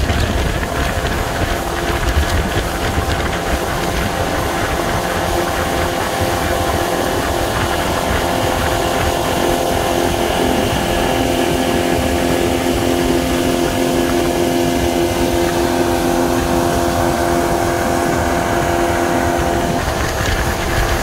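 Outboard motor of a fishing boat running steadily under way, a constant engine drone with a steady hum.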